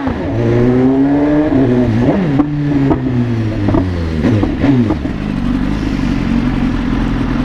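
BMW S1000RR's inline-four engine revving, its pitch rising and falling through several quick throttle blips, then settling to a steady idle about five seconds in.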